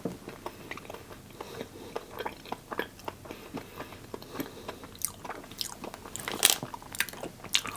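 A person biting into and chewing a crunchy snack: a run of small crunches, with a few louder bites later on.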